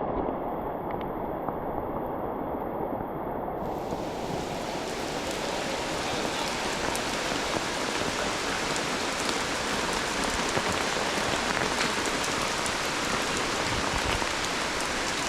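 Steady rain falling, a dense hiss with many small drop ticks; about four seconds in, the hiss becomes fuller and brighter.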